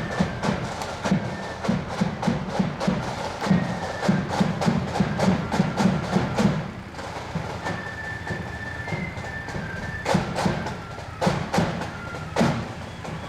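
Marching flute band playing: thin, high flute lines over dense snare drumming and bass drum beats. The drumming thins out about seven seconds in and comes back strongly about three seconds later.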